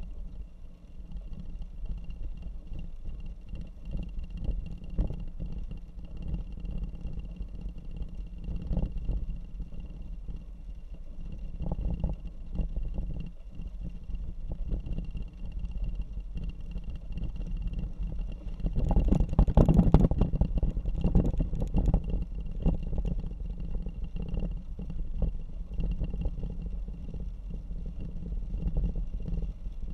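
Hummer H3 driving on a wet gravel road: a steady low rumble with crackle from the tyres on the gravel, louder and rougher for a few seconds about two-thirds of the way through.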